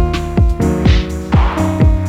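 Electronic background music with a steady drum-machine beat, about two kicks a second, under held synth notes.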